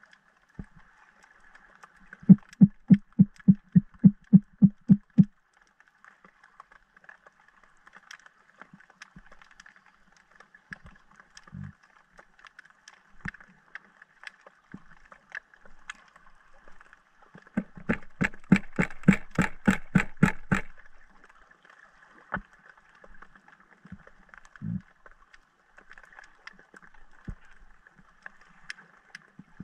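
Underwater sound picked up by a diving camera: a faint steady crackling hiss. It is broken by two trains of rapid, evenly spaced knocks: about a dozen low ones, four a second, early on, and a louder, sharper run of about fifteen, five a second, past the middle, with a few single low thumps between.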